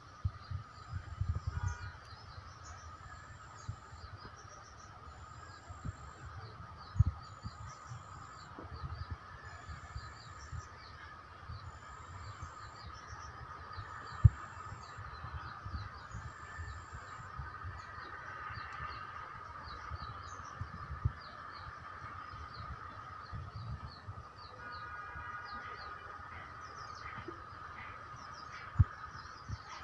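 Outdoor ambience of birds chirping against a steady high drone, with low rumbling bumps and a few sharp knocks from the handheld phone's microphone.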